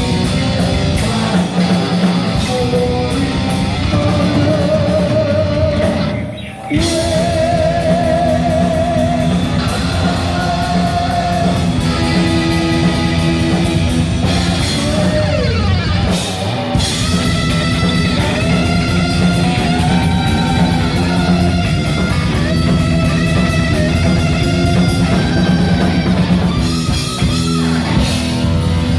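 Heavy metal band playing live: distorted electric guitars, bass and drum kit, with a lead line of wavering, bent notes over the top. The band stops for an instant about six seconds in, then comes back in.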